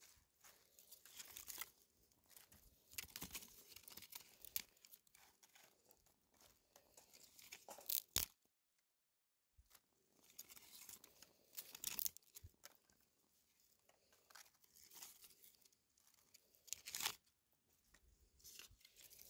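Faint, irregular crackling and crunching of dry leaves and twigs as sticks are handled and laid over a small leaf fire.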